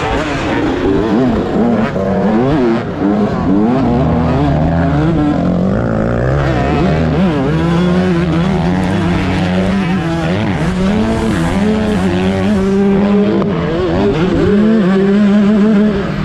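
Dirt bike engine revving hard and easing off again and again as the bike races around a motocross track, its pitch climbing and dropping with the throttle and gear changes.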